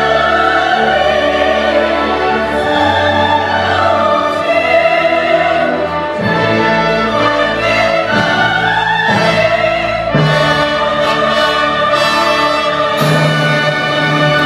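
Symphony orchestra playing classical music with singers, their voices held with vibrato over sustained strings. The texture shifts a few times, about six, ten and thirteen seconds in.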